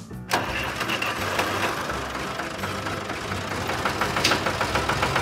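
Heavy vehicle engine sound effect, running with a fast, even clatter that starts about a third of a second in.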